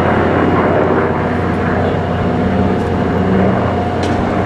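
Douglas DC-6's four Pratt & Whitney R-2800 radial piston engines and propellers droning steadily as the airliner flies a steep banking turn overhead.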